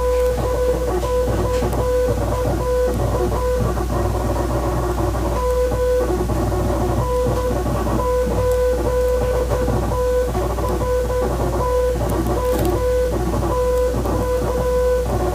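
A steady beep keyed on and off in short and long marks, like Morse code, over guitar music and a constant low hum.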